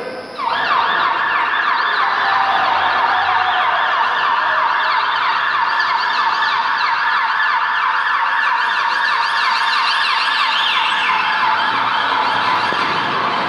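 Ambulance-style emergency siren sound effect, played over the hall's speakers as part of the mime's soundtrack, wailing rapidly up and down in pitch. It comes in suddenly about half a second in and holds at a steady loud level.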